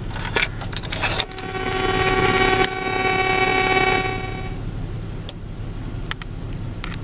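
A few sharp clicks from the cassette deck's controls, then a steady held note with overtones from the truck's stereo speakers. The note fades away about four and a half seconds in as the volume knob is turned down.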